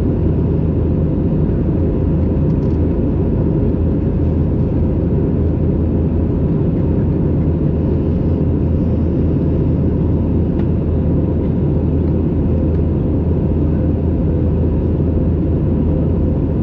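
Steady low cabin drone inside an Airbus A320neo climbing to cruise: airflow over the fuselage and the CFM LEAP-1A turbofan engines, with a faint steady tone above the rumble.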